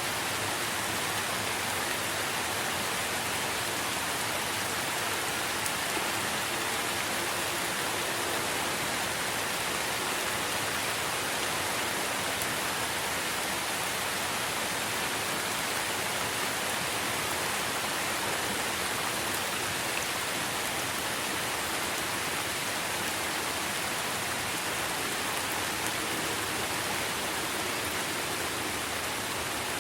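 Steady rain falling on tree foliage: an even hiss.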